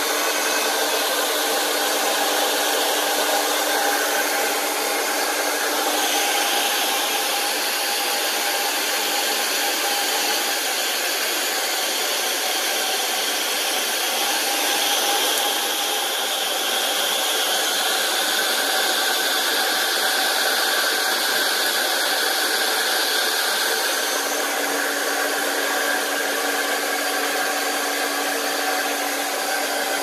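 Hot Tools Pro Artist 2000-watt ionic hair dryer running steadily: a continuous rush of air with a fan tone. Its sound changes about six seconds in and shifts back about four-fifths of the way through.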